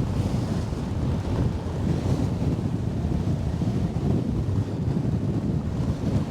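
Gusty wind rumbling and buffeting on the microphone aboard a sailing yacht under sail, with water rushing along the hull. It is a steady, even noise with no distinct events.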